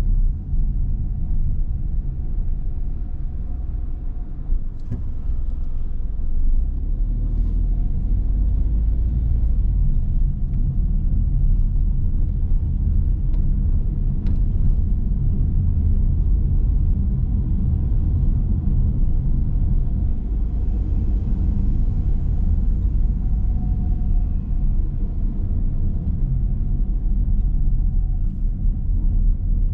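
Car driving at low speed along city streets: a steady low rumble of engine and tyres on the road, with a couple of faint brief clicks.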